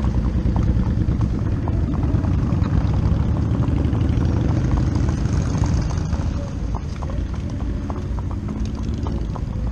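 Horses' hooves clip-clopping on an asphalt street, a quick, irregular run of clicks, under a heavy, steady low rumble.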